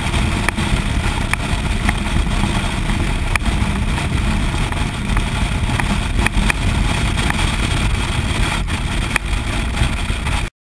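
Cruiser motorcycle running at road speed, its engine rumble mixed with steady wind rush on the on-bike microphone. The sound cuts off abruptly near the end.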